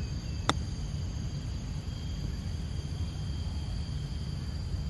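A golf wedge striking the ball on a chip shot: one sharp click about half a second in, over a steady low background rumble.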